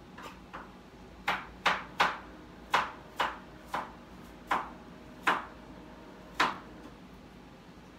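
A series of about ten sharp knocks at uneven intervals, each dying away quickly.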